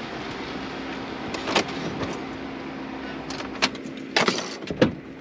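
Pickup truck engine idling with a steady hum inside the cab, switched off near the end. A few sharp clicks and a jingle of keys come over it.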